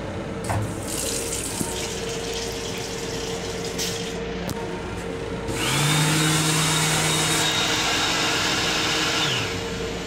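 Touchless washbasin unit in a Long Island Rail Road M7 train lavatory. Water runs faintly for a few seconds, then a motor in the unit starts with a rising whine and a loud rush of air or water, runs steadily for about four seconds, and winds down with a falling whine.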